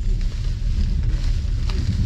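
Passenger train running at speed, heard from inside the carriage: a steady low rumble of wheels on rails, with a faint sharp click near the end.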